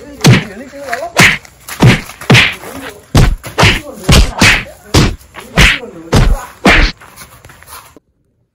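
Fistfight blows: a string of about a dozen loud punching whacks, roughly two a second, that cut off suddenly near the end.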